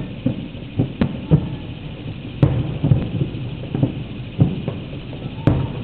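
Aerial fireworks shells bursting in a rapid string of low booms, about a dozen in all, with two sharper cracks, one about halfway through and one near the end.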